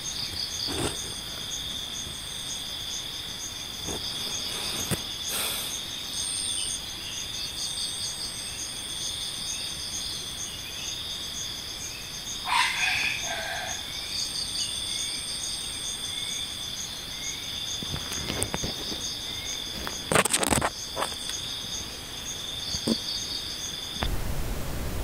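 Tropical forest insects such as crickets and cicadas chirring steadily in several high, pulsing tones, with a short animal call about halfway and a few brief knocks and rustles, the loudest about twenty seconds in.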